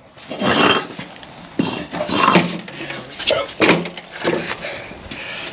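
Footsteps, with knocks and clinks from a long galvanised steel angle-iron lintel being carried by two people. The sounds come as a string of separate irregular bumps.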